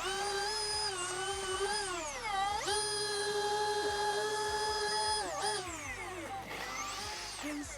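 Milwaukee M18 Fuel 20-inch dual-battery chainsaw's electric motor and chain running at high speed in a steady whine. The pitch sags twice and climbs back before trailing off near the end.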